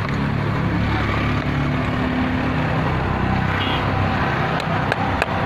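Car engine idling steadily under the open bonnet, with three sharp clicks near the end.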